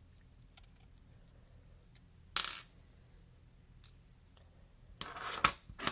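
Small metal knife parts clinking as they are handled and set down on a hard surface: a single clink about two seconds in, then a short clatter with a sharp click near the end.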